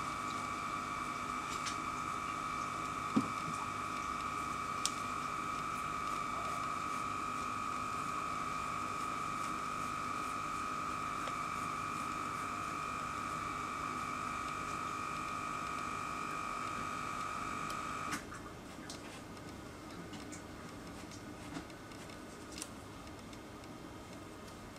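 A steady high-pitched whine over hiss, cutting off suddenly about eighteen seconds in, with a few faint ticks scattered through.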